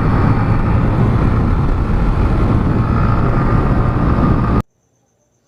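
Wind rushing over the microphone along with the engine and road noise of a Honda CG Titan 160 motorcycle being ridden. It is a loud, even rush that cuts off suddenly about four and a half seconds in.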